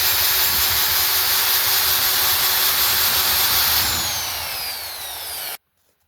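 Wood lathe running with the oak lampshade being sanded, a steady loud machine-and-abrasive noise. About four seconds in, the motor is switched off and its pitch falls as it spins down, then the sound cuts off abruptly.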